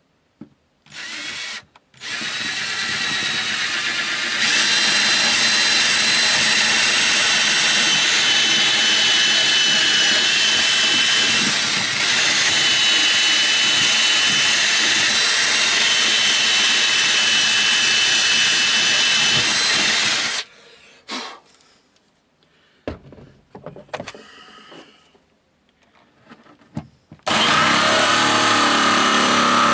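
Cordless drill boring through the boat's cabin side, with one short burst and then a long continuous run of about eighteen seconds that gets louder a couple of seconds in. It stops, and near the end an electric jigsaw starts up, beginning the cut-out for a deck hatch.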